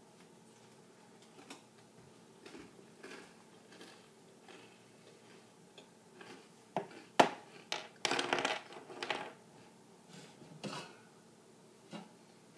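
Scattered clinks and knocks of dishes and utensils being handled in a kitchen, with a louder run of sharp knocks and clattering about seven to nine seconds in.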